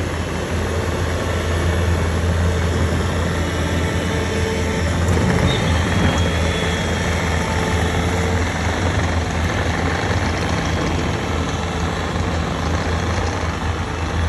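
Diesel heavy-equipment engines running steadily with a constant low hum: a Bobcat compact track loader driving off, with a dump truck's engine close by.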